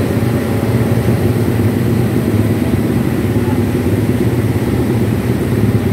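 Race-tuned Honda Supra GTR 150 underbone's single-cylinder four-stroke engine running steadily at idle.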